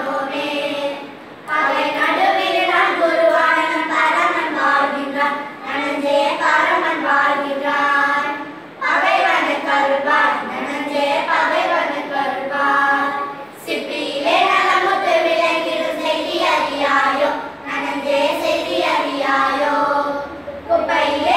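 A small group of young girls singing a song together, in phrases separated by short breath pauses.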